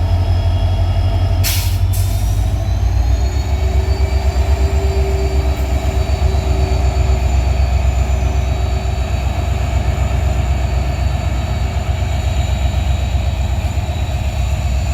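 Departing passenger train hauled by a WDP4D diesel locomotive with an EMD engine: a steady low hum and rumble with a thin, high steady whine over it. There are two short, sharp metallic clanks about a second and a half in.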